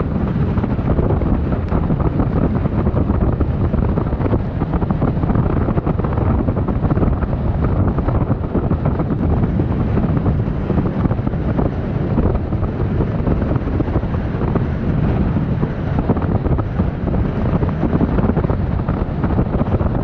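Heavy wind buffeting the microphone on a speedboat running through stormy sea, a steady loud rush with the churn of water and hull underneath.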